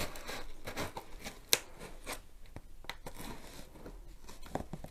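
Scissors snipping through sellotape along the seam of a cardboard box, with the tape crackling and tearing. A run of short snips, the sharpest about a second and a half in.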